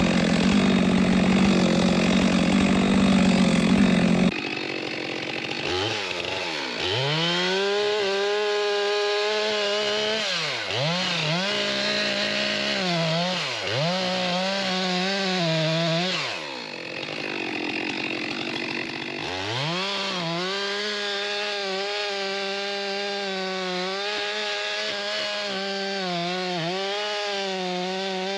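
Chainsaw running at high revs while cutting through a poplar log. The engine note dips repeatedly as the chain bites under load, drops away briefly about two-thirds of the way through, then comes back up and holds.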